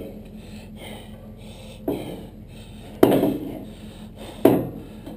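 Three heavy knocks, about a second apart, each ringing briefly, with the second the loudest, over a steady low hum.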